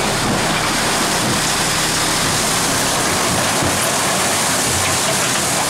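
A load of rock and fill sliding and pouring out of a raised dump truck bed: a steady rushing noise without a break.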